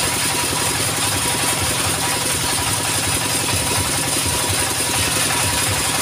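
Small horizontal single-cylinder diesel engine of a portable sawmill idling steadily with an even firing beat, the saw not cutting.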